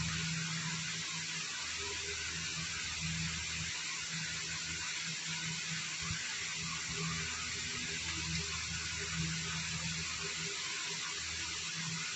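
Steady hiss of room or recording noise, with a low hum that comes and goes every second or two.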